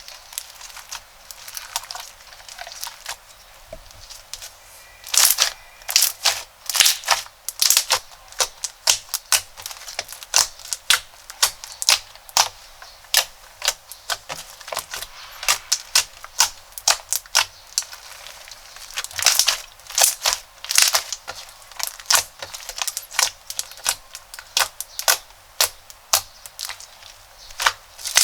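Crunchy slime being handled, giving faint scattered crackles, then from about five seconds in a dense run of loud, sharp crackling pops, several a second.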